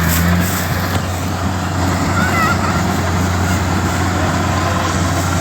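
Engine of a rice harvesting machine running steadily at a constant speed: a loud, even, low drone.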